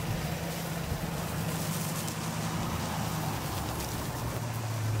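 Ford Super Duty pickup towing an enclosed trailer, its engine running with a steady hum as it drives past over field stubble; the hum drops lower as it goes by near the end.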